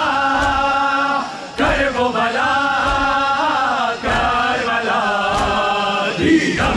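Group of men chanting a Persian noha (mourning lament) in unison through a microphone, with mass chest-beating (matam) striking in time about once every second and a quarter. A louder shout breaks in near the end.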